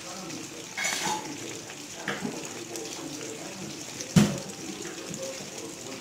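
Steel ladle clanking against an aluminium kadai while onions fry in oil, with a short scrape about a second in and one sharp, loud clank about four seconds in, over faint sizzling.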